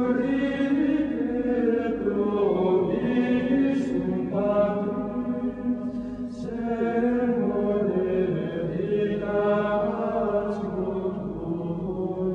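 Choral chant: voices singing slow, held notes that change pitch every second or two.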